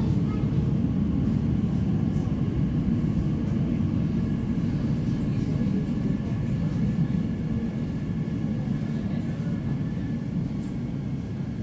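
Inside a Bombardier Class 345 electric train running into an underground station and slowing: a steady low rumble with a faint steady whine above it, gradually getting quieter.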